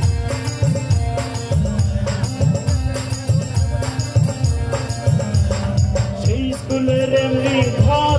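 Live band playing an instrumental passage of a Bengali song: a steady hand-drum beat under held keyboard chords and electric guitar. Near the end a singing voice comes in.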